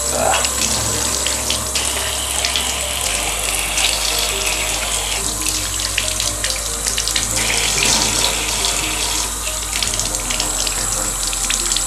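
Tap water running steadily into a bathtub and splashing over a foam aquarium filter sponge held in the stream while it is rinsed clean of muck.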